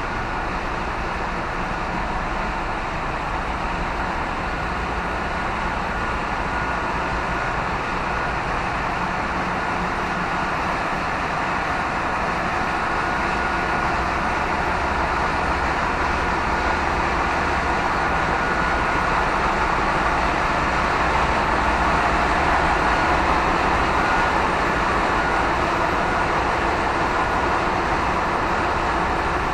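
Steady, loud din of a cargo ship's engine room machinery, with a low hum under it and a thin, steady high whine; it grows a little louder about two-thirds through.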